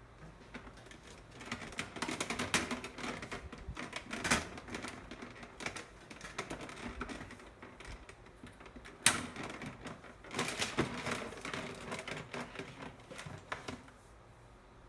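Plastic parts of an electric fan clicking and rattling as they are handled and fitted together. The clicks come in quick runs, with a sharper knock about four seconds in and another about nine seconds in.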